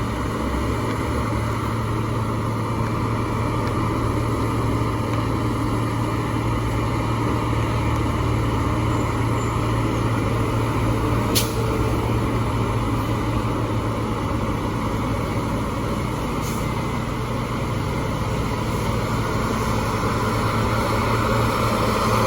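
Heavy diesel truck engine running steadily, with a single sharp click about halfway through.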